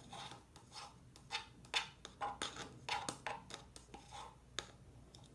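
Light plastic clicks and scrapes, a plastic knife tapping and scraping in a plastic yogurt container while soap and shampoo are mixed into slime, irregular and a few times a second.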